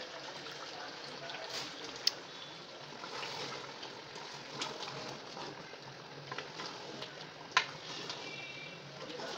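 Mutton and freshly added yogurt sizzling and bubbling in a large aluminium pot on the heat while being stirred. A couple of sharp clinks of the ladle against the pot, the loudest near the end.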